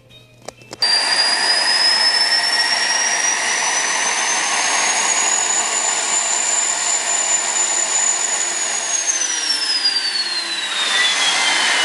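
Homemade turbocharger jet engine fed with propane, running with a loud roar and a high turbine whine. The sound starts abruptly about a second in, the whine climbs in pitch over the next few seconds and holds, then falls steadily from about nine seconds in as the turbine slows.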